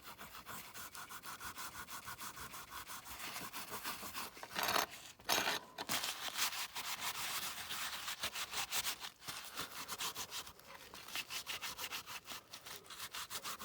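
Paper with metal polish rubbed briskly back and forth over a die-cast metal toy car body, about five strokes a second, with two louder scrapes near the middle. The polish is cutting through the grime and the metal is coming clean.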